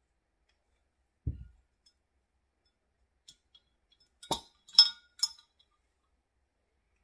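A soft low thump about a second in, then three sharp clinks a few seconds later as a glass oil bottle is picked up and handled, the middle clink loudest.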